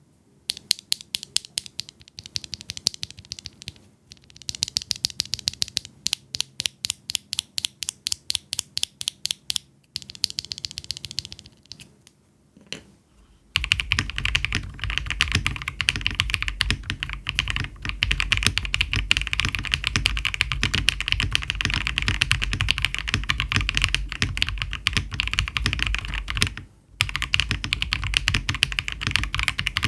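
Mechanical keyboard with Aflion Blush linear switches (polycarbonate top, nylon bottom housing, POM long stem, double-stage spring) being typed on. Single keystrokes come evenly at about two to three a second at first, then after a short pause give way to fast continuous typing, with a brief stop near the end.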